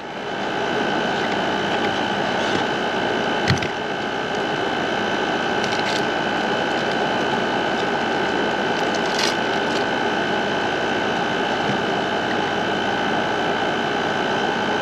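A 5000 BTU window air conditioner running steadily: its compressor and fan make an even hum with a high, steady whine on top. A few brief clicks come through about four, six and nine seconds in.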